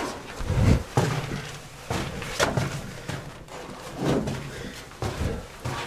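Footsteps and dull knocks and scrapes as a person squeezes through a narrow rock tunnel, shoulders bumping and brushing against the walls: a string of uneven thuds several times a second apart.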